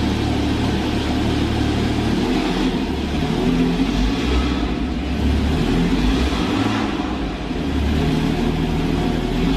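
Porsche 718 Cayman's 2-litre turbocharged flat-four engine running just after start-up, its revs rising and falling several times. It echoes inside an enclosed garage.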